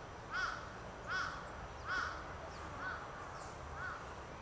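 A crow cawing, a run of five evenly spaced caws about one every three-quarters of a second, the last two fainter.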